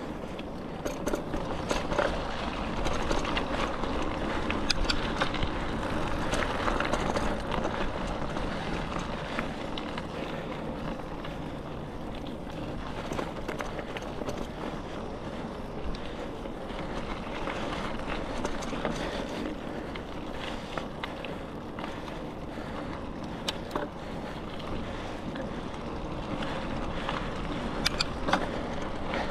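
Bicycle rolling along a dirt trail: steady tyre and riding noise with scattered sharp clicks and rattles from the bike.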